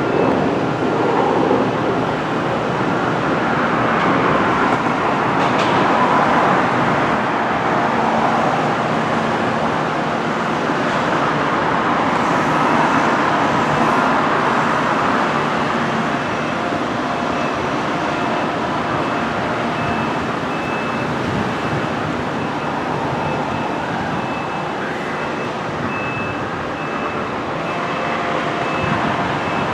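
Steady running noise of a moving train, swelling and easing slowly, with a faint steady high tone over it.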